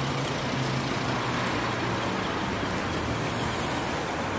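City street ambience: a steady wash of road traffic with the low hum of a nearby vehicle engine, stronger in the first couple of seconds.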